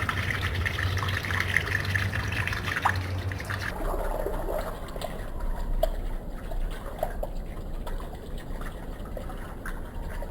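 Water trickling and running, with a low hum under it at first; a little over a third of the way in the sound changes abruptly to a quieter trickle with scattered small drips and ticks.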